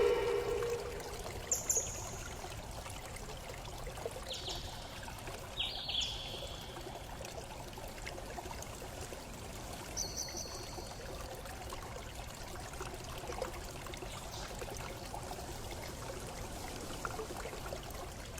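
Steady running water with a few short, high bird chirps scattered through it, and one louder call right at the start.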